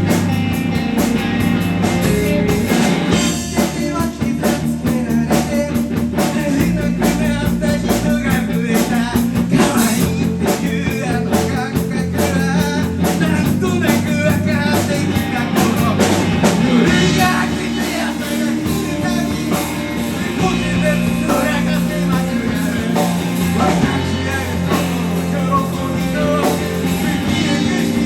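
Rock band playing live, with electric guitar, bass and drums.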